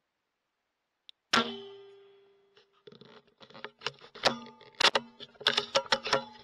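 A single shot from a .22 rimfire CZ 452 bolt-action rifle, a sharp crack with a short ringing tail, about a second in. From about three seconds in comes a quick run of sharp metallic clicks and clacks as the bolt is worked to chamber the next round.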